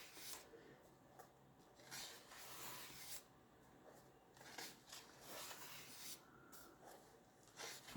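Faint rustling of paper pages being turned and handled in a colouring book, a few soft brushes of paper with near silence between them.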